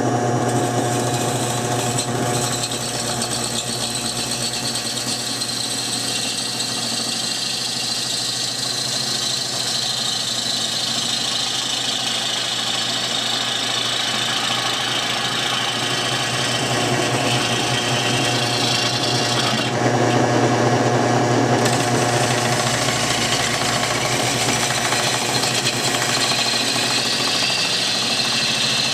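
Homemade wood lathe spinning a green-wood bowl while a bowl gouge hollows out the inside: a steady motor hum under the continuous hiss of the gouge cutting and peeling off chips. About twenty seconds in, the cut's high hiss drops out for a couple of seconds.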